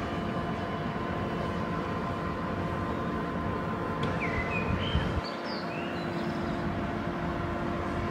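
DSB ER (IR4) electric trainset standing at the platform with its doors unlocked, its onboard equipment giving a steady hum over a low rumble. A few bird chirps come in about halfway through.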